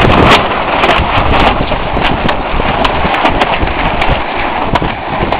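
Storm wind gusting hard against the microphone: a loud, rumbling rush that is strongest at the start and eases slightly later, with scattered sharp clicks through it.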